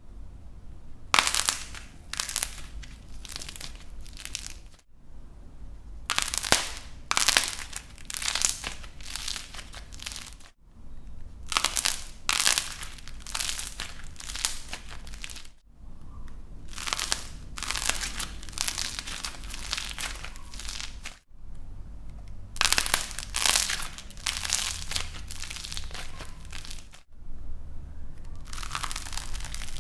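Dried light plasticine (plaster clay) crackling and crunching as it is squeezed and broken apart, in dense runs of small cracks. There are short clips with abrupt cuts about every five seconds.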